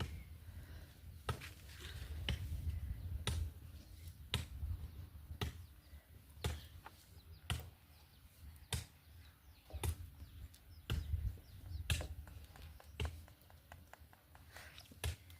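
Sharp taps or knocks, about one a second, over a low rumble.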